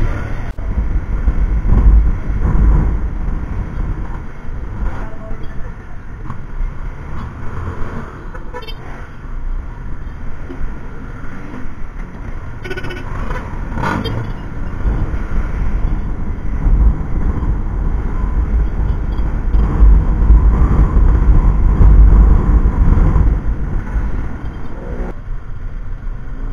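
Honda Click 150 scooter riding through city traffic: a strong, uneven low rumble of engine and wind on the bike-mounted camera's microphone, with traffic around it.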